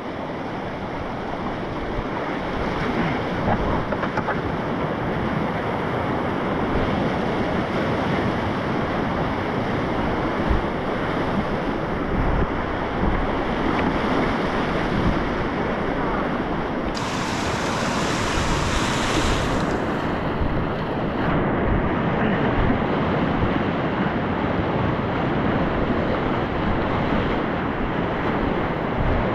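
Whitewater rapids rushing and churning around a packraft on a river swollen by rain, running at about 650 cfs, with wind buffeting the microphone. The hiss grows brighter for a couple of seconds just past the middle.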